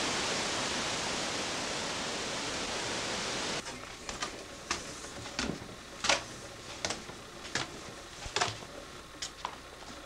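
Steady rush of storm wind from a hurricane, which cuts off abruptly about a third of the way in. After that come irregular light knocks and clicks, roughly one or two a second, from someone moving about indoors.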